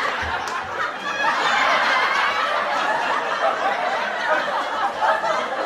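Sitcom laugh track: a studio audience laughing together, a sustained, steady wave of many overlapping chuckles and laughs.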